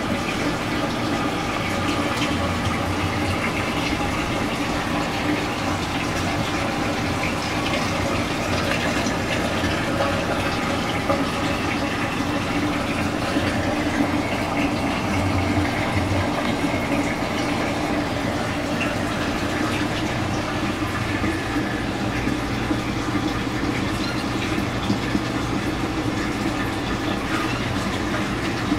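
Saltwater reef aquarium's circulation running: a steady rush of moving water with a low pump hum underneath.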